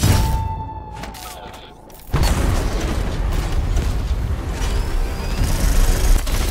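Sci-fi battle sound effects for a CG mech fight: a heavy boom at the start with a high whine fading over about two seconds, then from about two seconds in a dense, continuous barrage of heavy weapon fire and explosions over music.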